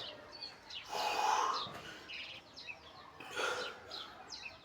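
Birds chirping, with many short falling chirps repeating throughout. Two louder rushing swells, one about a second in and another near three and a half seconds, stand over the birdsong.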